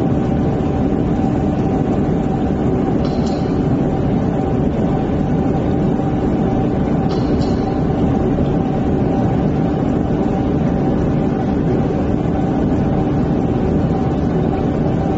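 A jewellery laser welding machine running with a loud, steady hum, with a faint short tick about three seconds in and another about seven seconds in.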